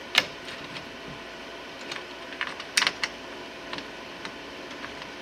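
Scattered metal clicks and knocks from a transmission cooler and its mounting bracket being worked into place in a truck: one sharp click just after the start, a cluster of knocks near the middle, and lighter ticks in between.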